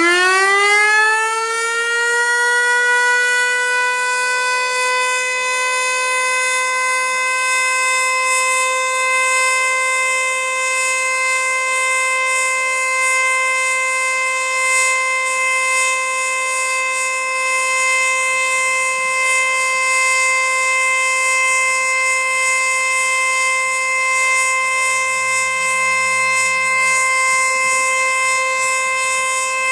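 Federal Signal Eclipse-NH outdoor warning siren sounding a full alert. It finishes winding up to pitch in the first second or two, then holds one loud, steady tone.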